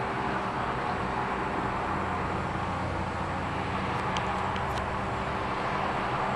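Steady street traffic noise, an even rumble of passing cars, with a few faint ticks about four seconds in.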